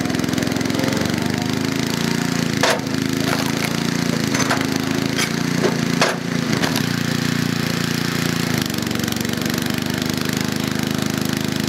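Portable 4000-watt generator engine running steadily, its note changing from about a second in until near the end as it carries the load of the electric log splitter's motor. Over it, several sharp cracks of a log splitting come one after another in the middle.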